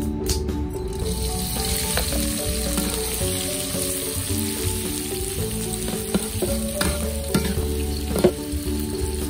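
Sliced garlic, shallots, green chilies, bird's eye chilies and onion sizzling in hot oil in an aluminium wok, the sizzle building about a second in as they go into the oil. A metal spatula stirs them, scraping and clinking against the wok a few times, the sharpest knock near the end.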